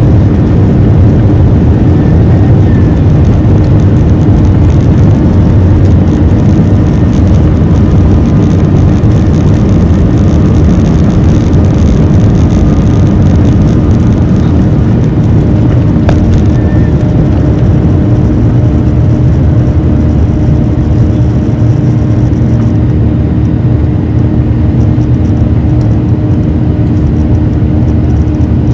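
Jet airliner's engines at takeoff power, heard from inside the cabin during the takeoff roll and climb-out. The noise is loud and steady, with a steady hum under it, and the hiss thins out about three-quarters of the way through.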